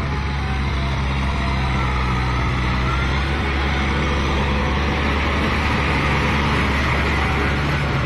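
Kubota M6040SU tractor's diesel engine running steadily under load as the tractor pushes through deep paddy mud, getting a little louder as it comes close.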